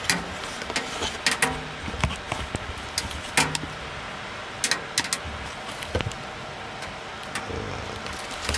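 Wood fire in a wood-burning stove crackling, with irregular sharp pops and clicks as a large fresh log heats on the glowing embers.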